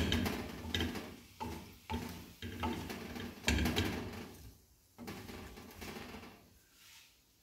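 Wooden spatula stirring and scraping diced chicken around a nonstick kadai as it fries, in a series of uneven scraping strokes that die away near the end.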